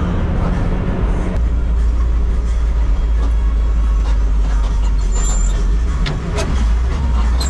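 A bus's diesel engine running under load, heard from inside the driver's cabin as a loud low drone. Its note shifts about a second and a half in, and there are a few short rattles and clicks in the second half.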